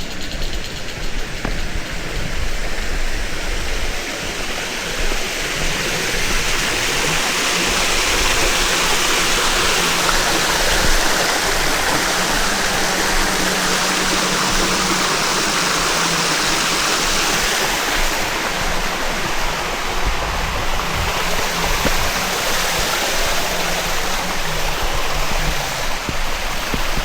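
Rushing water of a stream or small weir, a steady loud wash that grows louder a few seconds in, with a faint low hum underneath.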